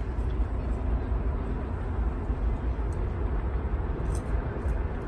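Steady low vehicle rumble with an even hiss of road or engine noise, as heard from inside a car.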